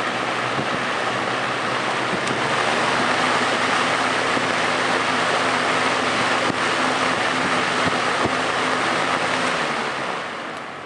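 Edison electric box fan running: a steady rush of air over a low motor hum. Near the end the hum drops in pitch and the sound falls away, as the fan slows.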